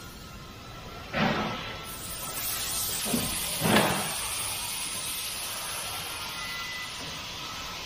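Machinery of an automated car body-shop line, with robots and clamping fixtures, running as a steady mechanical background. Two sudden hissing whooshes come through, about a second in and again near four seconds.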